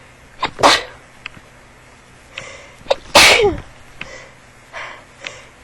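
A person sneezing twice in a sneezing fit, each sneeze set off by a short sharp catch of breath, with audible breathing between them. The second sneeze, about three seconds in, is the longer one, its voice falling in pitch.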